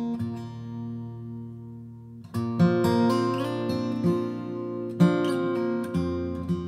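Lowden F25C acoustic guitar in open CGDGAD tuning, capoed at the third fret, fingerpicked: a soothing tune with notes left ringing. The notes die down about half a second in and pick up again with fresh, louder notes a little past two seconds.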